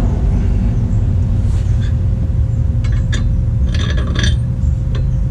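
Metal hardware clinking and scraping as washers and nuts are handled and started onto airbag bracket bolts, with a few short clusters of clinks in the middle, over a steady low rumble.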